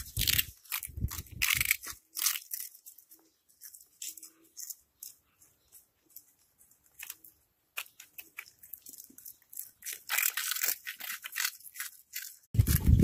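Cats crunching puffed snack balls: dense crisp crunching in the first two seconds and again from about ten seconds in, with only scattered crunches between. A loud low rumbling thump near the end.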